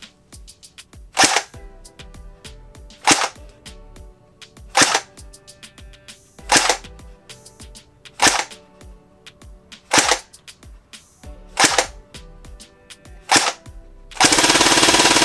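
CYMA FN F2000 airsoft electric gun with a metal version 3 gearbox firing eight single shots about 1.7 seconds apart. Near the end it fires a rapid full-auto burst at about 18 rounds per second.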